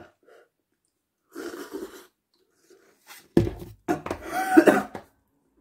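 A man reacting to a mouthful of very spicy noodles with wordless vocal sounds: a breathy gasp, then about three and a half seconds in a sudden loud cough-like outburst followed by strained, pitched groans.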